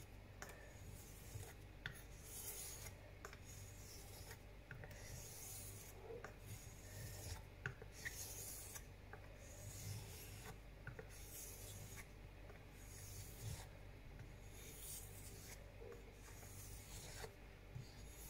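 Straight razor blade stroked back and forth across a 3000-grit sharpening stone, a faint scraping hiss on each pass, about one pass a second.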